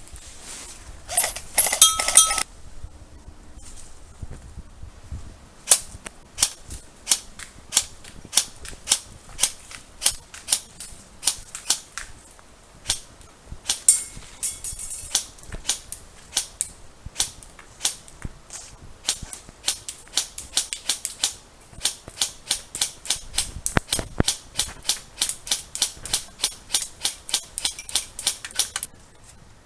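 Airsoft guns firing: a short, loud burst about a second in, then a long string of single sharp shots about two a second, quickening to about three a second in the last several seconds.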